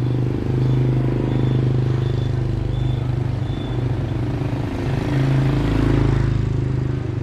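A vehicle engine running with a steady low drone that swells about five to six seconds in, with a few faint short high beeps in the first half.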